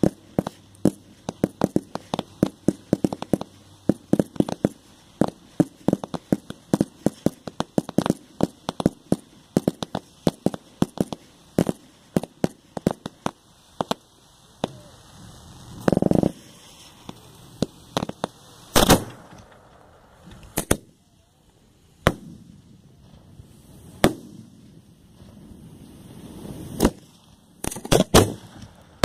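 A fireworks cake firing close by: a rapid string of sharp shots, about three a second, for roughly the first fourteen seconds. After that comes a longer burst, then a few louder single bangs a second or more apart.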